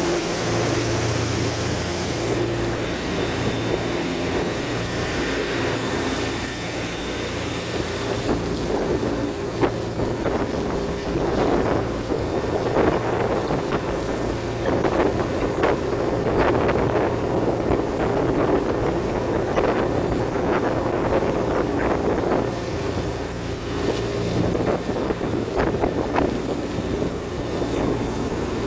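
A 15 m polyethylene boat running at speed: a steady engine drone with a thin high-pitched whine above it, under the rush of water and spray along the hull.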